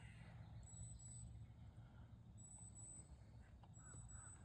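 Near silence: faint outdoor ambience with a low rumble and a thin, high whine that comes and goes several times.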